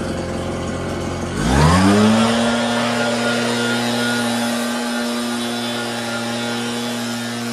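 Gas backpack leaf blower throttled up from idle to full speed about a second and a half in, then running steady at high revs with the rush of air from its tube.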